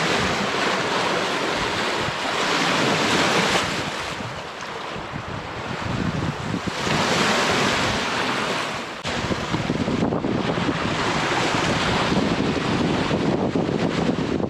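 Sea waves washing onto the shore, swelling louder twice, with wind rushing over the microphone.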